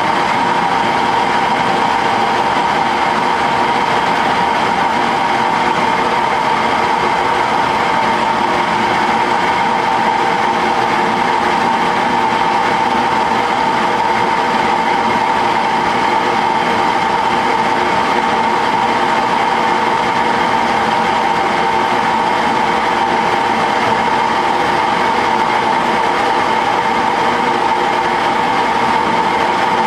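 Small benchtop metal lathe running steadily with a high-pitched whine while its tool takes a cut along a mild steel round bar, heating the cut.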